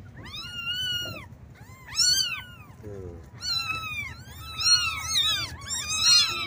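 Several young kittens meowing in high, thin calls, each one rising and falling, a fresh call about every second and several overlapping in the second half: kittens calling for their mother to come and nurse them.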